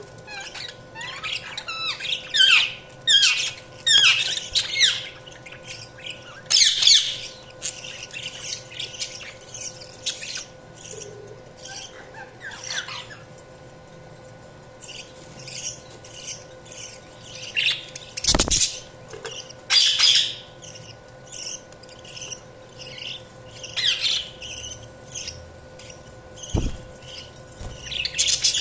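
Budgerigars chirping and chattering in quick, short calls, busiest in the first few seconds, thinner for a while around the middle, then picking up again. A faint steady hum lies underneath.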